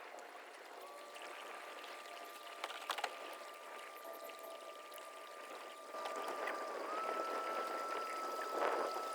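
Water trickling and splashing along a kayak's hull, with a faint steady whine underneath that steps up in pitch about seven seconds in. A couple of sharp clicks come about three seconds in.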